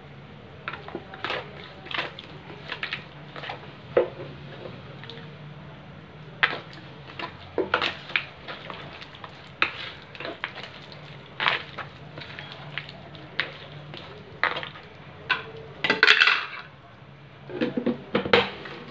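Cooking oil heating in a kadai on a low gas flame, giving off irregular crackles and pops over a steady low hum, with a longer hiss about sixteen seconds in.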